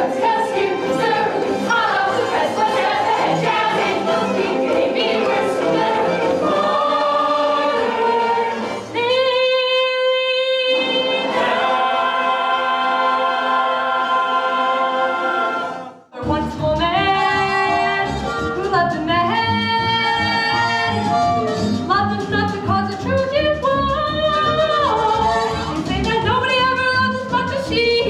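Stage-musical ensemble singing in chorus, mixed live through the theatre's sound system, building to a long held chord. About halfway through it cuts off abruptly and another song starts, with singing over a steady bass accompaniment.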